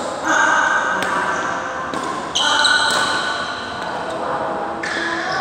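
Badminton rally: rackets striking the shuttlecock in sharp hits about once a second, with shoes squeaking on the court floor in between.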